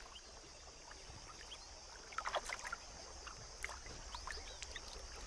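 Faint splashing and dripping of water as African elephants wade and drink, with scattered small sloshes and a few short high chirps.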